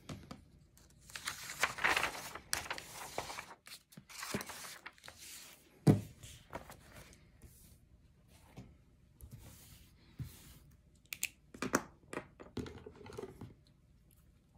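Black vinyl cutting sheet being handled and laid on a wooden table: crinkling and rustling of the plastic film in several spells, with a sharp knock about six seconds in and a few light clicks near the end.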